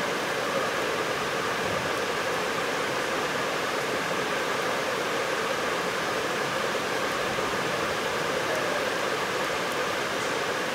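A steady rushing noise that stays even throughout, with no bat-on-ball strike.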